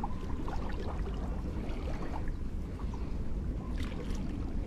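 Wind buffeting the microphone: a steady low rumble, with a few faint small clicks.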